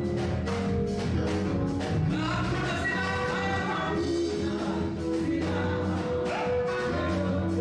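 Live gospel praise-and-worship music: singers on microphones over backing music with a steady beat, the voices coming in about two seconds in.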